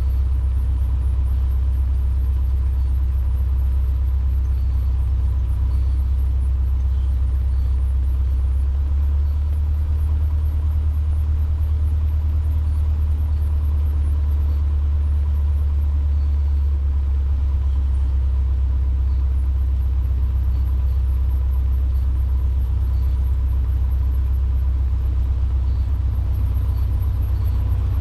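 Cessna 150's Continental O-200 four-cylinder engine running at low ground power, a steady low drone with a slight shift in pitch between about 9 and 17 seconds in.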